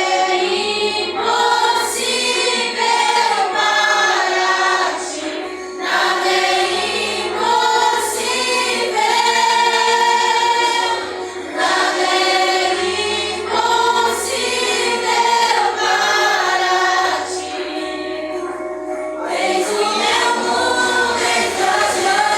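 A vocal group singing a gospel worship song in harmony, phrase after phrase with short breaths between, over a low sustained bass.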